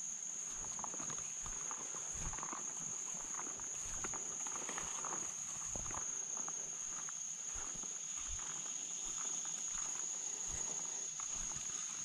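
A steady, high-pitched insect drone from the summer woods, with irregular footsteps and rustling as someone pushes through leaves and brush.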